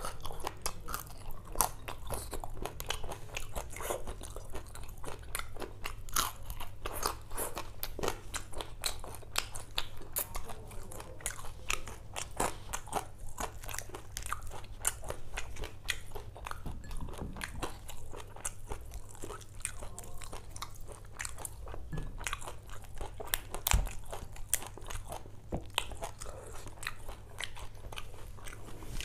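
A person eating spicy prawns by hand close to the microphone: steady chewing, crunching and wet biting and sucking, with many short sharp clicks and one louder crack a few seconds before the end. A steady low hum runs underneath.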